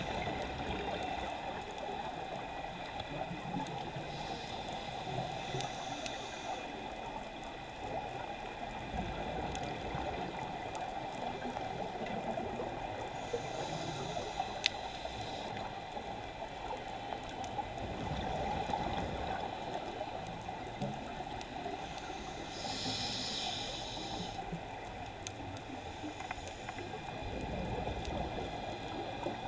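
A scuba diver breathing underwater on a regulator: three breaths about nine seconds apart, each a hiss of inhaled air followed by a low rumble of exhaled bubbles, over a steady crackling underwater background.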